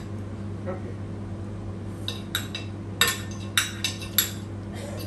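Metal fork and spoon clinking and scraping against a ceramic dinner plate while eating: a quick series of sharp clinks starting about two seconds in, over a steady low hum.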